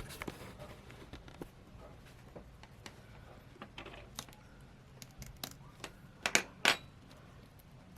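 Tweezers prying and picking at the plastic internal parts of an opened Samsung Galaxy A52: a scatter of small clicks and taps, with two louder snaps about three-quarters of the way in.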